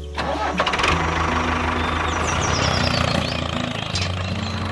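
Engine turning over and starting, then running steadily at idle.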